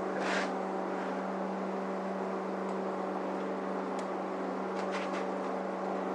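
A steady electrical hum from shop equipment, with a few faint clicks and scrapes over it around the middle.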